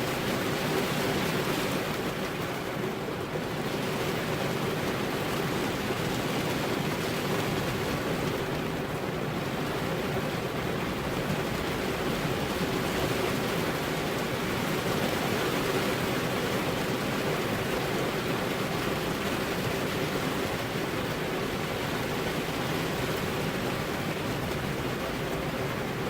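Steady, even rain noise: heavy rainfall hissing without a break.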